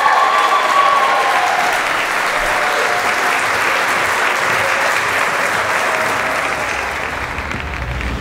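Crowd of wedding guests clapping and cheering, with a drawn-out whoop in the first second. The applause eases slightly near the end.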